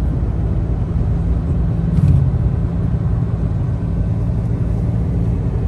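Car driving, heard from inside the cabin: a steady low rumble of engine and road noise, with a brief bump about two seconds in.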